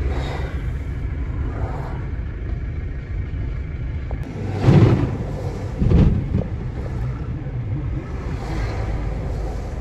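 Inside the cab of a GAZelle Next van moving slowly in traffic: a steady low engine and road rumble, with two short, louder rumbles about five and six seconds in.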